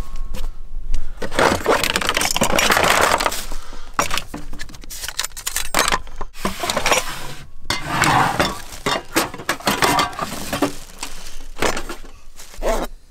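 Cookware clinking and knocking as a frying pan, a knife, plates and cups are rummaged out of a wooden storage crate, with stretches of rustling in between.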